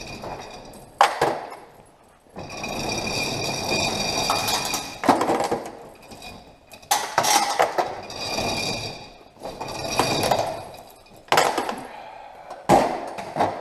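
The steel hand chain of a chain-operated overhead shop door being pulled hand over hand, clinking and rattling against the metal door track as the door moves. It comes in repeated pulls a couple of seconds long, with sharp clanks between them.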